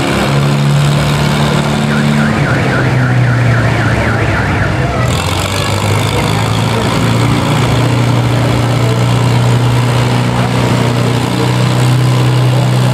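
Antique tractor's engine running steadily at low speed, its pitch shifting slightly. A warbling, siren-like tone sounds over it from about two to five seconds in.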